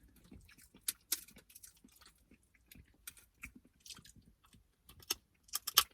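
Person eating crab legs and shrimp: chewing and biting, with scattered crunches and sharp clicks, and several clicks in quick succession just before the end.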